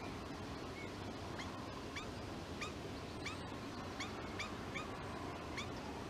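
European starling giving short, high call notes, two or three a second, over a steady background hiss. These are not the starling's usual call.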